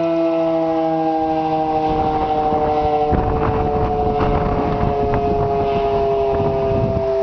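Outdoor warning siren sounding a steady alert tone on its monthly test: several tones held together, drifting slowly and slightly lower in pitch. From about three seconds in, a low rushing noise sounds under it for a few seconds.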